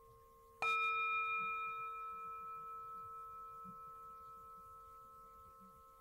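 A singing bowl struck once, less than a second in. Its ring of several wavering tones fades slowly away.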